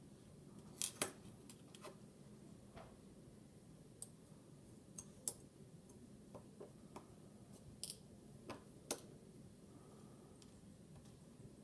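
Scattered small, sharp clicks and taps from handling a Kershaw Dividend pocket knife and its small parts, the loudest two close together about a second in.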